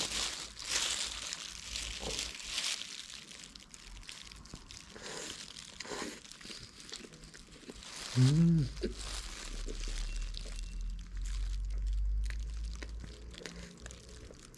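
Clear plastic bag crinkling around a large tortilla wrap as it is handled and bitten into, with chewing. A short hummed "mm" rises and falls about eight seconds in.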